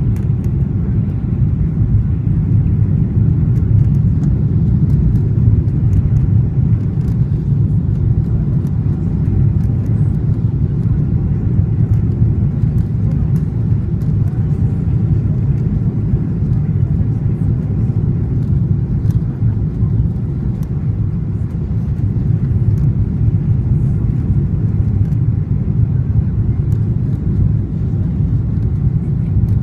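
Steady low rumble inside a jetliner's cabin on final approach: engines and airflow over the extended flaps, with small cabin clicks and rattles now and then.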